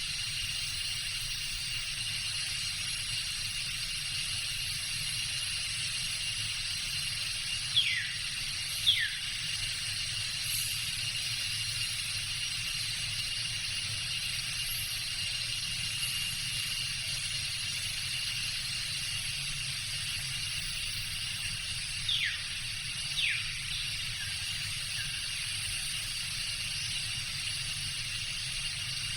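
Tropical jungle ambience: a steady insect chorus holding several high, even tones over a low rumble. A bird calls twice, each time two quick falling whistles, about eight seconds in and again past twenty seconds.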